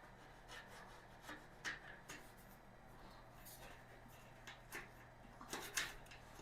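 Faint handling of storage-shelf parts: scattered light clicks and rubbing as an upright is fitted into the assembled frame, with slightly louder knocks about a second and a half in and near the end.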